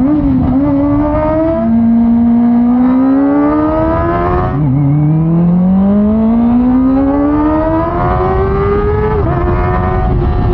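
Kawasaki Ninja ZX-25R's 249 cc inline-four engine pulling hard while riding. Its note rises steadily, drops sharply twice as it shifts up (near the middle and again near the end), then holds steady.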